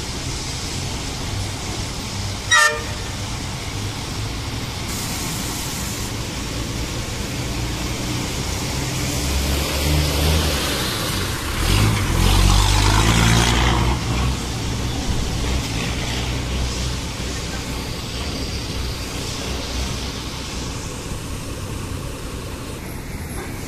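A 6x6 cargo truck's engine running, swelling into a rev for a few seconds around the middle, with one short horn toot a couple of seconds in.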